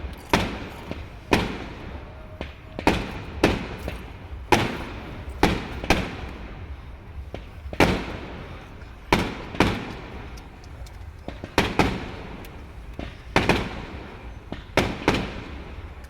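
Fireworks bursting overhead in a steady run of sharp bangs, about one to two a second, each trailing off in a short echoing rumble.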